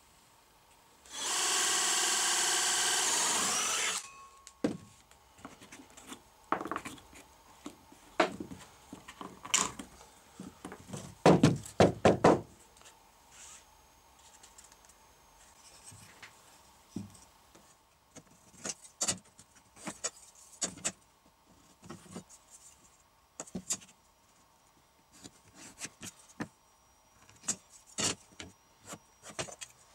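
A Greenworks cordless drill fitted with a red hole saw runs steadily for about three seconds near the start. After it come scattered wooden knocks and clatters, loudest in a quick cluster about halfway through, then light taps and scrapes of wood and tools on the bench.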